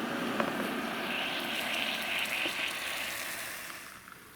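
Water at a rolling boil in an electric hot pot, a steady bubbling rush that fades away near the end.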